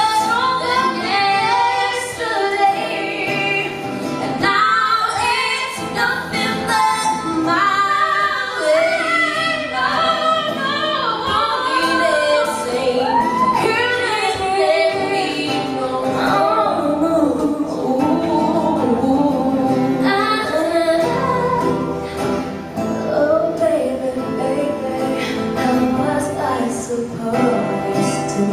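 Two women singing a duet live, accompanied by a strummed acoustic guitar.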